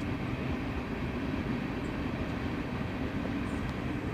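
Steady low hum of an electric bow-mount trolling motor holding the boat along the bank, even and unbroken.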